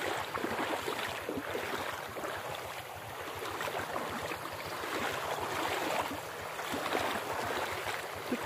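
Fast-flowing floodwater rushing and churning, a steady rushing noise.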